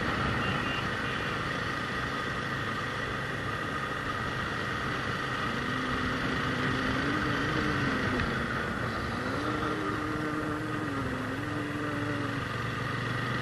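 Motorcycle running along on the move, with a steady rush of wind and road noise over the microphone.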